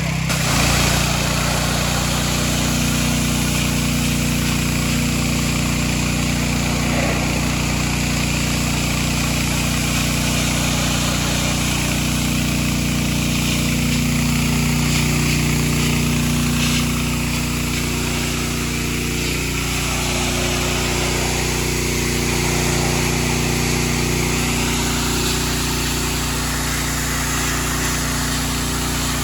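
Engine-driven pressure washer running steadily under load while cleaning concrete, its engine and pump note shifting slightly partway through.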